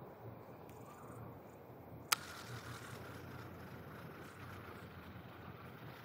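Faint, steady low rumble of outdoor background noise, with a single sharp click about two seconds in.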